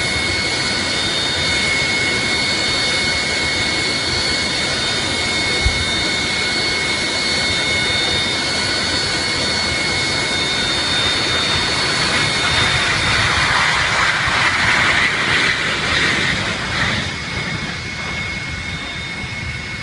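Jet airliner engines running at high power: a steady jet roar with high whining tones. It swells louder for a few seconds past the middle, then eases off.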